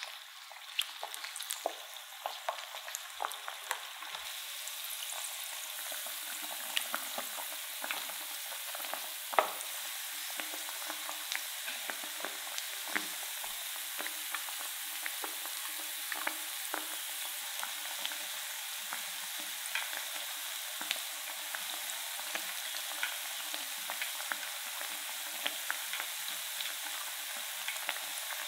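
Potato and cornstarch pieces deep-frying in hot oil in a pan: a steady sizzle that builds over the first few seconds, with many crackles and sharp pops, the pops strongest in the first ten seconds.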